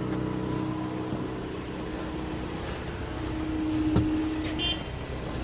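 Snow-clearing loader's engine running steadily at idle, with a single sharp knock about four seconds in.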